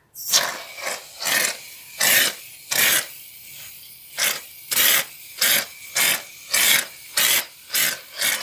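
Aerosol shaving cream can spraying foam into a metal baking dish: a steady hiss with loud, short spurts that come irregularly, about every half second.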